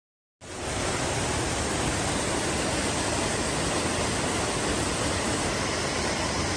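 Steady rush of falling water from a waterfall, cutting in abruptly about half a second in and holding an even level throughout.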